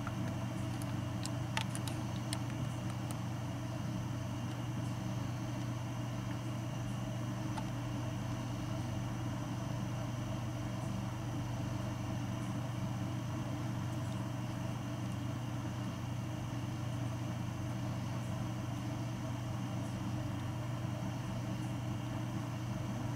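Steady low mechanical hum with several fixed tones, unchanging throughout, with a few faint clicks in the first few seconds.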